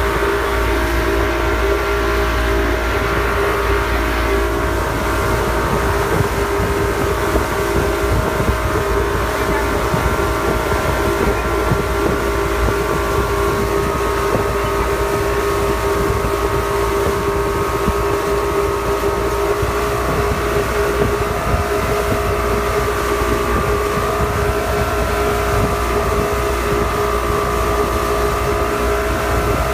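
Motorboat engine running steadily at speed while towing a banana boat, its pitch holding nearly even, with wind buffeting the microphone.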